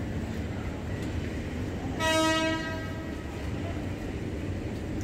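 Train horn giving one short blast about two seconds in: a single steady tone lasting well under a second, over a continuous low rumble of the station and the approaching train.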